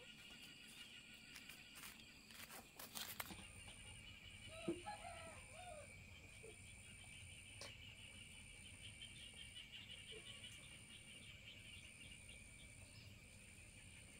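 Faint rural outdoor ambience: insects trilling steadily, with a high call repeating in short pulses. A few chicken clucks come about four to five seconds in, and a few clicks come near three seconds.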